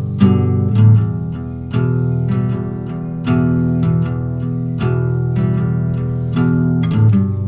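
Background music: guitar playing plucked notes in a steady rhythm.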